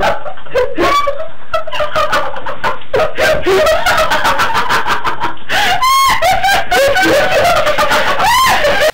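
A group of young people laughing hard in a small room, with shrill squeals about six seconds in and again near the end; it cuts off suddenly.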